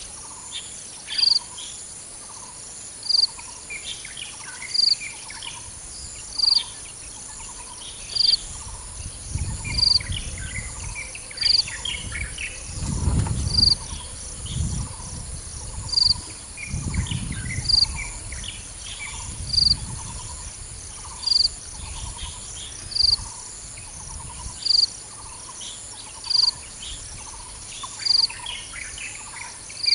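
Birds calling and insects chirping, led by a short, high chirp that repeats evenly a little under every two seconds over fainter repeated notes and scattered calls. A low rumble rises and falls through the middle.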